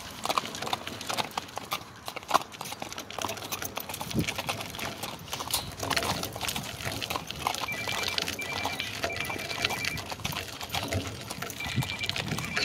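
Horse's hooves clip-clopping on gravel, with the crunch of a light training cart's wheels rolling over the stones behind an Arabian stallion.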